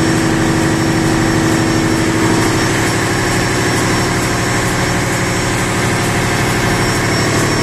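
Steady engine-room machinery noise: other diesel machinery running while the main engine stands open for inspection.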